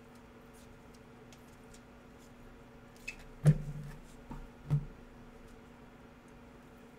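A click, then three short knocks about halfway through, the first the loudest: small objects set down or handled on a table. A steady low hum runs underneath.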